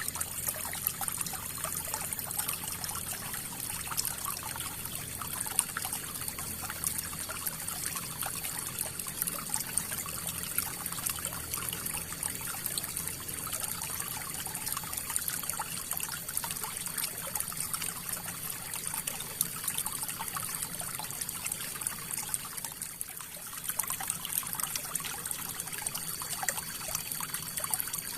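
River water flowing: a steady trickling babble of many small splashes, with a brief slight lull near the end.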